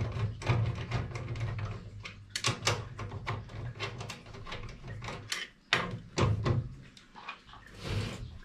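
Irregular knocks, clicks and clatter of handling the steel parts and fittings of a tool chest during assembly.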